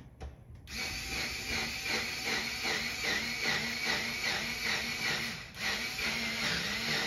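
Small cordless electric screwdriver running under load, driving a screw through J-channel trim into the wall. The motor starts about a second in, wavers steadily and dips briefly a little after the five-second mark.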